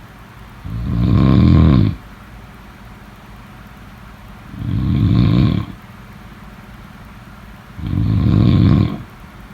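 A person snoring in deep sleep, three loud snores each about a second long, coming roughly every three and a half seconds.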